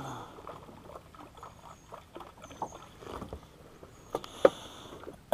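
Scattered light knocks, clicks and scrapes of fishing gear being handled in a small boat, with two sharper knocks about four seconds in.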